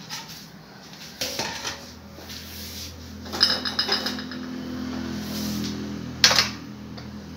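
Steel spoons and utensils clinking and rattling against metal. There are a few light clicks, then a rattling run of ringing clinks about three to four seconds in, and one sharp clack a little after six seconds.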